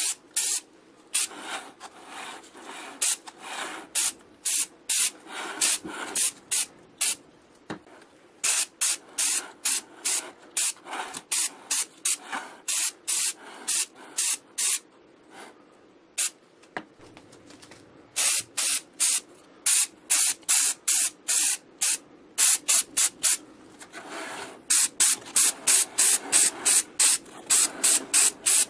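Spray hissing out in many short bursts, each a fraction of a second long, at an uneven pace at first and then quicker and more regular, about two a second, in the last few seconds.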